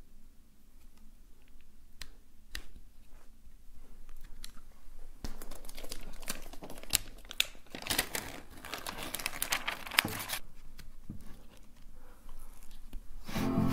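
Paper and packaging crinkling and rustling as a new laptop is unwrapped and handled, after a few light taps and clicks; the crinkling is densest for about five seconds in the middle. Music begins near the end.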